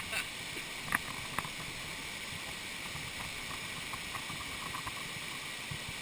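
Steady rush of a waterfall pouring into a plunge pool, with two short sharp clicks about a second in.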